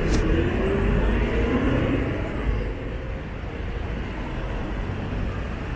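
City bus pulling away from the curb: its engine note rises as it accelerates over the first couple of seconds, then the sound fades as the bus drives off.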